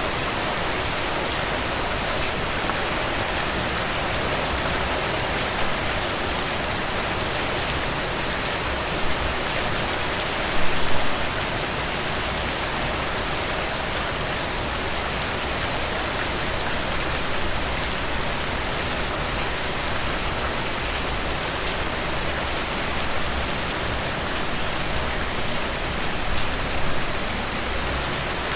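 Steady rain falling on frangipani leaves, an even hiss with individual drops ticking on the leaves, and a brief louder patter about a third of the way in.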